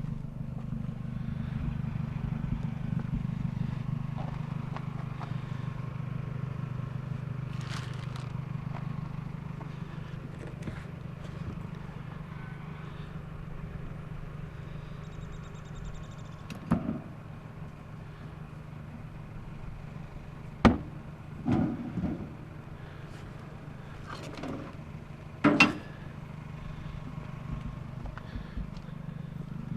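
Steady low hum of a car running, with several sharp knocks and clunks in the second half.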